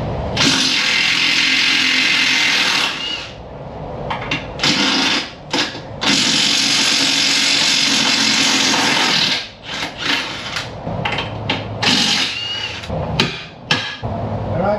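Cordless impact wrench hammering on bolts of a front steering knuckle: two long runs of about three seconds each, then a string of short bursts.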